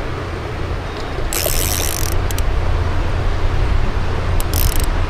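Spinning reel drag buzzing as a hooked bass pulls line out, in two short runs, one about a second in and a shorter one near the end, over a steady low rumble.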